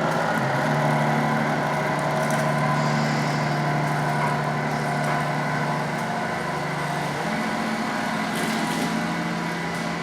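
Tamiya Knight Hauler RC truck running on its slow 60-turn crawler motor: a steady electric motor and gearbox whine that steps to a new pitch about a second in and again near the end as the speed changes.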